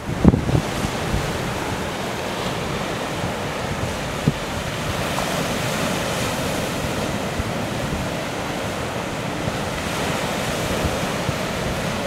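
Sea surf breaking against a black volcanic rock shore in a steady wash, with sea wind. A couple of brief low thumps of wind buffeting the microphone, one just after the start and one about four seconds in.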